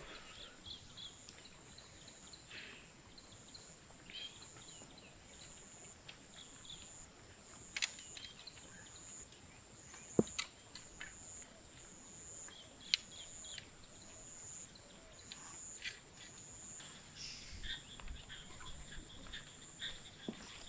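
Outdoor countryside ambience: a steady high insect drone with scattered short bird chirps. A few sharp clicks sound at about 8, 10 and 13 seconds in.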